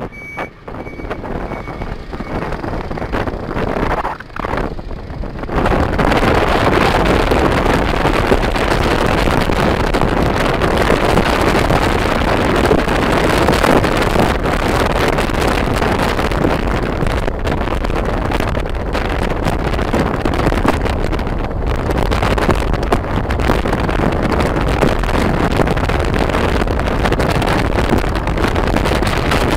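Wind rushing over the microphone of a phone carried on a moving motorbike, with road and engine noise beneath. It jumps much louder about six seconds in and stays loud.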